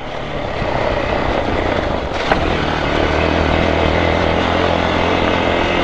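Hero XPulse 200's single-cylinder engine running steadily under way on a rough gravel track, mixed with wind and tyre noise and growing louder over the first second. One sharp knock about two seconds in.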